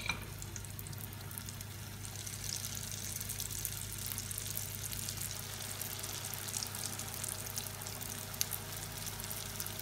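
Hot oil sizzling and crackling around a batch of lumpia shanghai (beef spring rolls) just put in to deep-fry in a pot. The crackle grows denser a couple of seconds in.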